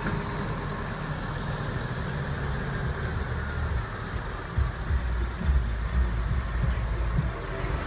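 Heavy diesel lorries running at low speed as they drive slowly past. A Scania tractor unit is approaching. Its deep, uneven low rumble grows louder in the second half.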